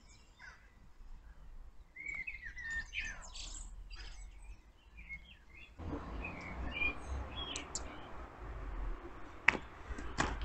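Small songbirds chirping and singing, busiest in the first few seconds. About six seconds in a low steady rumble joins them, and two sharp clicks come near the end.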